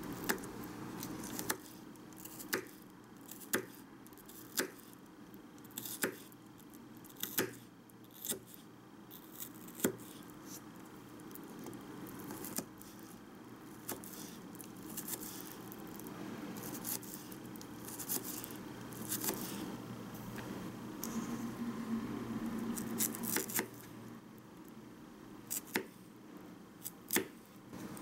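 A small kitchen knife clicking against a miniature wooden cutting board while slicing a boiled egg and then cucumber: sharp single taps, about one a second at first and then more irregular, over a faint steady hum.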